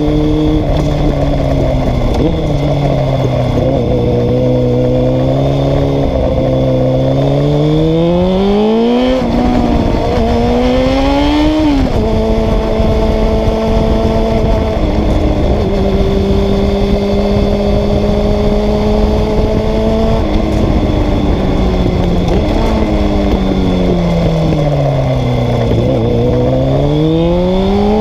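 Honda CBR600F3's inline-four engine under way, heard from on the bike. It pulls up through the revs with sharp drops in pitch at two gear changes, cruises at steady revs for about eight seconds, then winds down and picks up again near the end.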